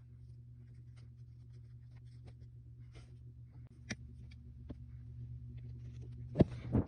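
Small tools and phone parts handled on a work surface: faint scattered ticks and scratches over a steady low hum, a sharper click about four seconds in, and two louder knocks near the end.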